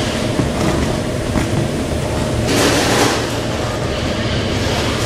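Machinery of an automatic weighing and packing line for frozen fish running with a steady, loud rumble and clatter. A louder rush of noise swells and fades about two and a half seconds in.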